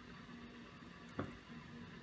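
Faint steady room hum, with a single soft knock a little over a second in.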